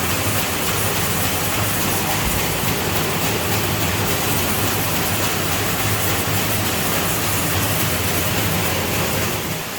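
Scrap metal color-sorting machinery running with chopped copper, aluminum and brass pieces passing through it: a steady, loud rushing rattle over a constant low hum.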